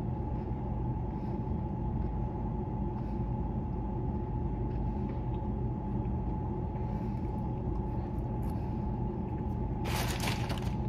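Steady mechanical hum of an air-conditioning system with a steady mid-pitched whine, over faint soft chewing. A short burst of hissing noise comes near the end.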